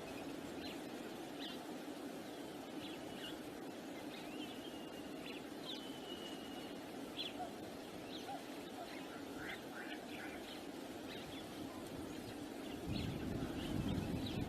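Several birds chirping and giving short whistled calls over a steady rush of wind. Near the end a gust of wind buffets the microphone with a low rumble.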